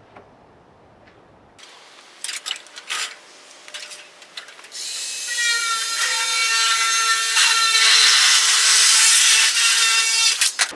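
A few knocks, then a power drill spins up about five seconds in and runs at a steady speed for about five seconds before stopping abruptly.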